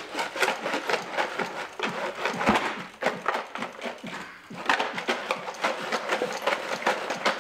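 A chunk of steel chain rattling and clattering inside the fuel tank of a Briggs & Stratton 5 hp engine as the whole engine is shaken by hand, scouring built-up gunk off the tank walls. The rattling is a fast, irregular stream of clinks with a brief lull about four seconds in.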